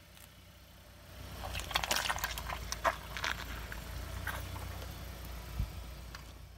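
A car tyre slowly rolls over a toy bear full of pink liquid and crushes it. About a second and a half in, a run of wet squelches and sharp crackles starts as the toy bursts and the liquid squirts out, then thins out. The car's low engine hum runs underneath, and there is a single low thump near the end.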